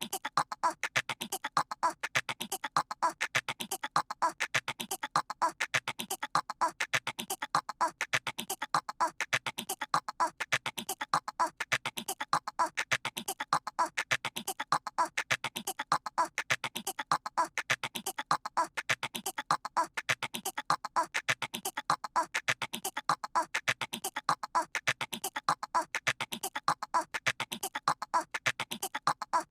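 A cartoon toddler's voice making rapid squeaky squirrel-like chattering, repeated in a steady unbroken loop.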